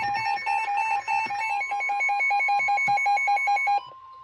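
Weather alert radios sounding their warning alarm for a severe thunderstorm warning: a rapid electronic beeping, about eight beeps a second, over a steady high tone. It cuts off suddenly near the end.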